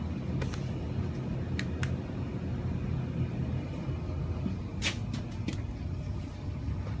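Steady low rumble of running air-handling equipment, with a few sharp clicks and knocks of parts being handled, the loudest just before five seconds in.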